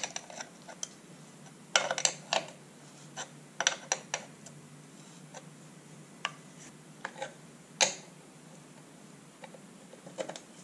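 Irregular light clicks and clacks of metal parts and hand tools being worked on a motorcycle's handlebar controls during a front brake master cylinder install, in scattered clusters with quiet gaps between.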